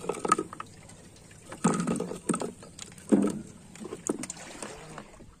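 Irregular knocks and thuds against the bamboo slat deck of a small wooden boat, the loudest about a second and a half in and about three seconds in.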